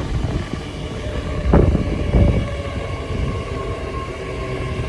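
Great Western Railway Class 800 train running slowly into the platform: a steady rumble with a humming whine from the train, and two heavier low thumps about a second and a half and two seconds in.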